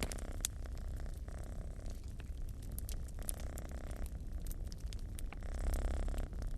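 A domestic cat purring, the purr swelling and fading in slow cycles with each breath. A wood fire crackles in a fireplace, with scattered sharp pops.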